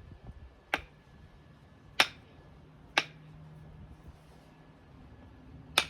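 Four sharp metallic clicks, spaced irregularly and the second one the loudest, as a new ball joint is tapped and worked into a steering spindle.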